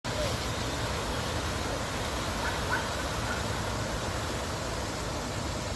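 Water falling steadily down a cascade fountain, an even rushing splash.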